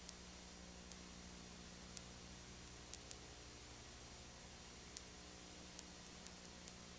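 Near silence: steady hiss and low hum of the recording's background noise, with faint sharp clicks at irregular intervals.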